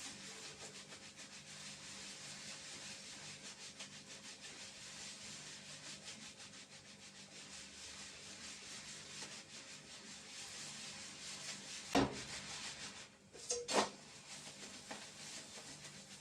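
Pancake batter sizzling quietly in a frying pan, a steady hiss. Two sharp knocks about three-quarters of the way through.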